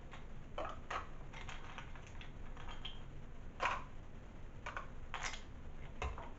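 Ice cubes being dropped into a blender cup: several sharp clinks, irregularly spaced.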